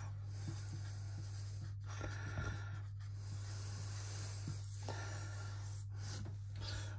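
Whiteboard marker scratching across a whiteboard as words are written. The strokes are broken by brief pauses where the pen lifts, and near the end a longer sweep loops around the words. A steady low hum runs underneath.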